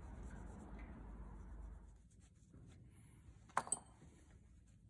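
Cloth rag rubbing over a metal deck fitting as it is wiped clean with acetone before bedding; the rubbing is strongest for the first two seconds, then fades. Two sharp clicks close together about three and a half seconds in.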